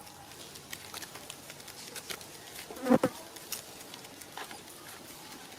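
Insects buzzing, with scattered light clicks and one brief, louder sound about three seconds in.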